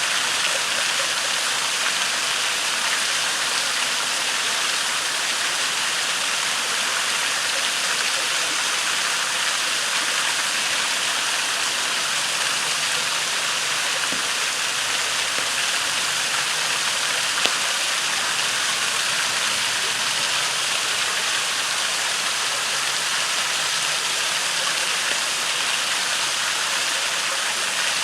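Small waterfall and creek rushing steadily, with one brief sharp pop from a crackling campfire a little past the middle.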